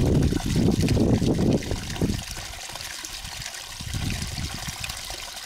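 Steady trickling of water, with a louder low, crackly rumble over the first two seconds and again about four seconds in.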